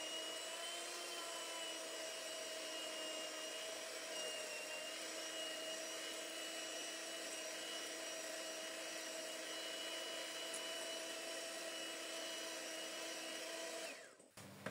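Handheld electric mixer running steadily, its beaters whisking eggs and sugar in a glass bowl: an even motor whine that cuts off near the end.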